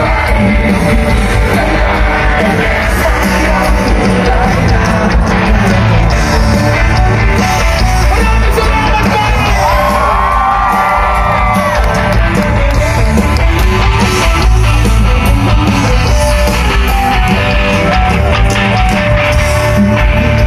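A rock band playing live through a concert sound system, loud and continuous, with electric guitar, drums and singing, and yells from the crowd around the phone.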